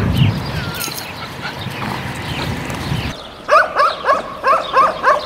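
Street dogs barking: a quick run of short, high barks, about three a second, starting about three seconds in.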